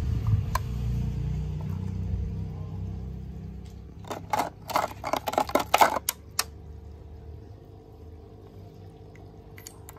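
Hard plastic toys clacking and rattling against a plastic bucket in a quick cluster of knocks about four to six seconds in, as a toy is dropped in among the others. A low rumble comes before it.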